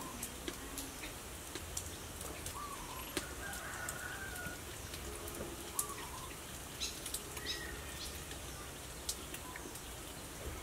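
Birds calling: a short call repeated every couple of seconds, with a higher call now and then. Light clicks of a metal spoon stirring in a ceramic bowl.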